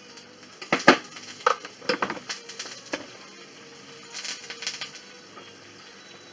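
Metal knocks and clinks as the stainless-steel mixing bowl of a Monsieur Cuisine Connect kitchen machine is lifted out and set down on a kitchen scale. The loudest knock comes about a second in, followed by scattered lighter clicks and a short rattle a little past the middle.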